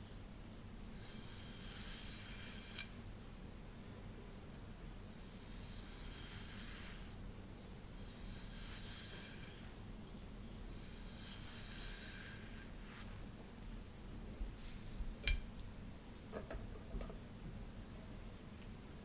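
Slow strokes through long hair, each a soft rustling hiss lasting a second or two, four in a row. There are two sharp clicks, one a few seconds in and one past the middle, and a few faint ticks after the second.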